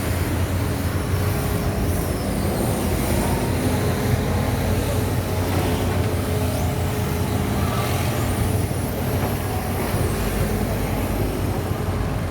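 Heavy diesel construction machinery running steadily, a continuous low engine rumble.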